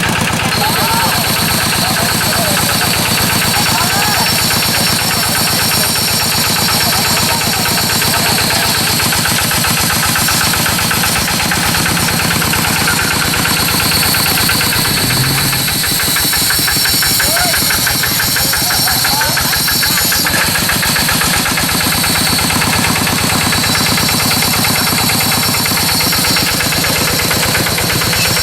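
An engine running steadily at an even speed, with a fast, regular knock.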